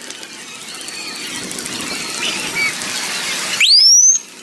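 A police vehicle's siren gives one short rising whoop about three and a half seconds in, very high-pitched because the audio runs sped up. It sounds over a steady wash of crowd and street noise.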